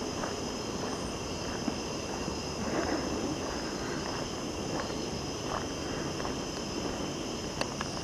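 Footsteps walking on a dirt track, irregular scuffing steps, over a steady high-pitched chorus of night insects such as crickets. A few sharp clicks come near the end.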